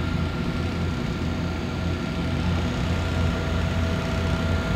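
Steady low drone of a Nordhavn trawler's diesel engine heard inside the cabin while underway, with a faint steady whine above it.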